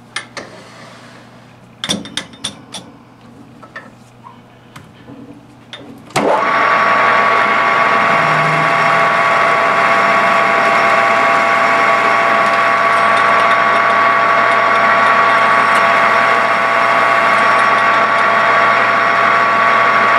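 A few clicks and knocks, then about six seconds in a metal lathe starts and runs steadily with a whine as a letter M twist drill bores into the spinning piston blank.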